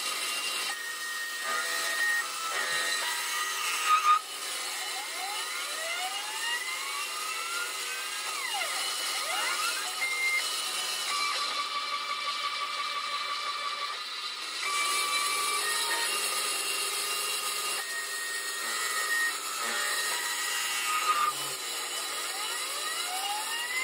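Homemade CNC lathe turning a wooden chess rook, the cutter shaving the spinning workpiece. Over the cutting noise come steady whining tones that jump from pitch to pitch as the feed changes, with rising glides at times, from the machine's stepper motors.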